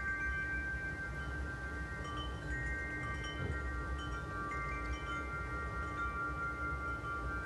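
Wind chimes ringing: several long, overlapping tones, a new one sounding every second or two, over a low rumble.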